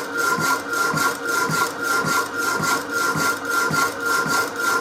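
Rapidor power hacksaw sawing through metal stock. It makes a steady back-and-forth stroke, nearly two strokes a second, over a constant motor whine.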